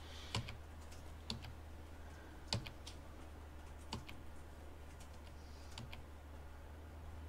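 A few sparse, single clicks about a second or more apart, keys being pressed to advance the slides, over a steady low hum.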